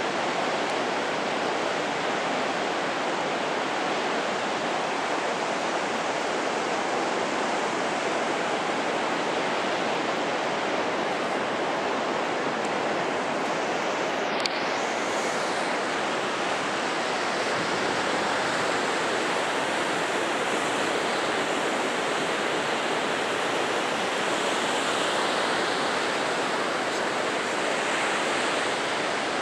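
Heavy surf breaking on a sandy beach: a steady, unbroken rushing of waves.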